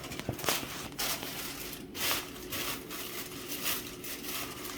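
Irregular rustling and scraping handling noise with a few sharp clicks: the control potentiometers inside an opened Behringer B215D speaker being turned by hand to work in freshly sprayed contact cleaner, a fix for its static and popping.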